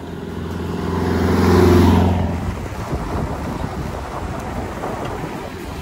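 A four-wheel-drive SUV's engine and its tyres on a dirt road as it passes close by. The sound builds to a peak about two seconds in, dips slightly in pitch and fades to a rough crunching rush.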